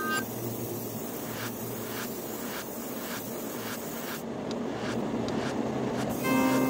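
Background music in a quiet passage: a soft, hissy texture with a faint, even beat about twice a second.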